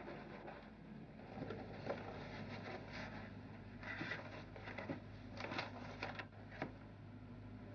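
Faint rustling and handling of a cardboard box and crumpled newspaper packing as the box is opened and a paper note is lifted out, in short bursts and light clicks over a low steady hum.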